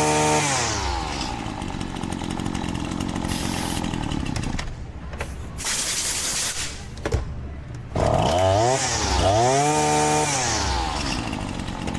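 Husqvarna 525L string trimmer's small two-stroke engine running on test after a new air filter and carburetor readjustment. It is held at high revs and drops back to idle, then is revved up once more and falls back to idle. It sounds good.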